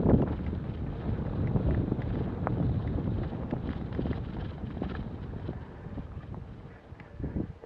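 Wind buffeting the action camera's microphone as a mountain bike rolls fast down a dirt singletrack, with small rattles and clicks from the bike over the rough ground. It gets quieter toward the end as the pace eases.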